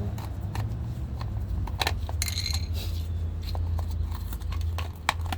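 Scattered small clicks and clinks of metal and plastic parts being handled while taking apart a car door latch, with a brief metallic rattle about two seconds in, over a steady low hum.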